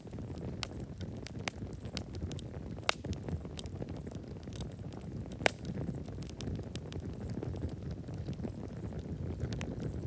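Small twig campfire crackling, with irregular snaps and two sharper pops about three and five and a half seconds in.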